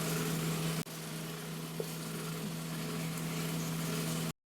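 A steady low machine hum, like a small motor or appliance running. It breaks briefly about a second in and cuts off abruptly near the end.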